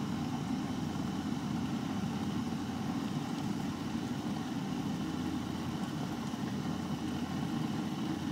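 Chefman glass electric kettle heating water, giving a steady rumble as the water comes up to the boil.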